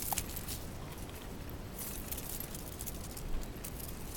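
Outdoor ambience: a steady low rumble with a few faint soft rustles and scuffs.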